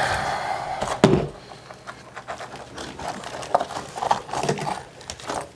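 Hand tools scraping and knocking at broken ceramic tile and backer-board debris on a shower floor: a long scrape, one sharp knock about a second in, then a run of small clicks and scrapes.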